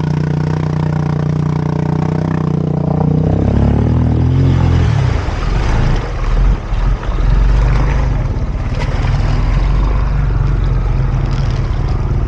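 Honda 300 ATV's single-cylinder four-stroke engine running steadily while wading through deep water. About three seconds in its pitch falls, giving way to a low rumble mixed with the churning of water around the machine.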